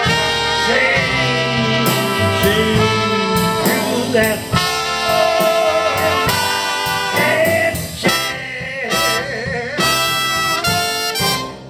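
Traditional jazz front line of trumpet, cornet, clarinet and trombone playing together in ensemble. The playing breaks off right at the end.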